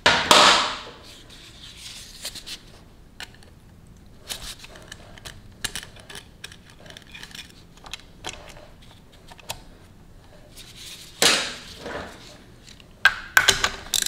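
Metal cam timing chain and cam sprocket clinking and clicking as they are handled by hand, the sprocket lifted and the chain moved on its teeth to correct cam timing that is one tooth off. Louder clattering comes right at the start and again near the end, with light scattered clicks between.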